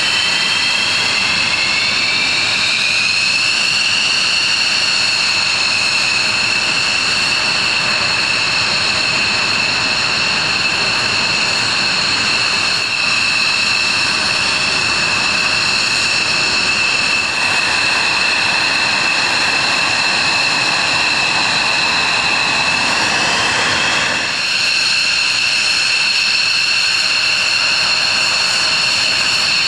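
F-16 fighter jet engines running at low, ground-level power: a high, steady whine over a rushing jet noise. The whine rises in pitch over the first few seconds, then holds.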